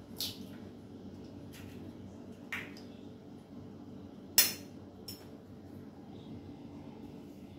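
Eggs being cracked with a steel spoon over a stainless steel bowl: a handful of sharp taps and clinks of spoon on shell and metal, the loudest a little over four seconds in.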